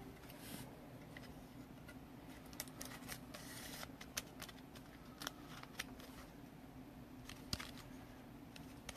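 Faint handling noise: scattered light clicks and soft rustles, as of trading cards and card holders being handled on a table, over a low steady hum.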